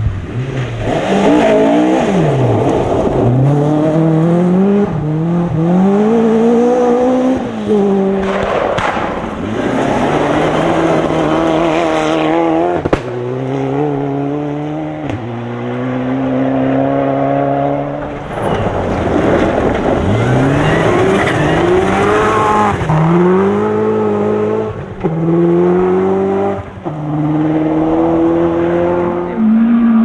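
Rally cars running flat out on a loose gravel stage, their engines revving hard and climbing in pitch through the gears, dropping back at each gear change, several passes in turn. Between them comes the noisy rush of tyres on gravel.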